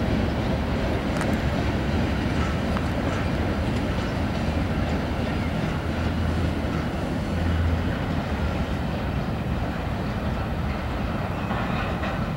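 CSX freight train of covered hopper cars rolling along an elevated track in a steady rumble of wheels on rail, growing a little quieter in the second half.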